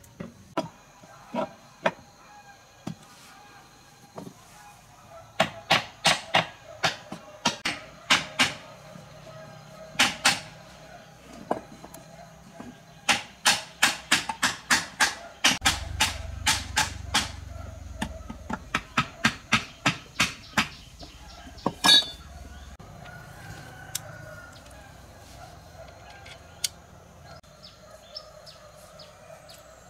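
Hammer blows on metal, struck in runs of quick strikes, about three a second, with pauses between runs. The single loudest blow lands a little past the middle.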